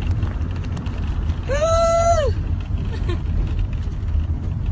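Steady low engine and road rumble inside a vehicle's cabin, with a woman's short high-pitched squeal about two seconds in.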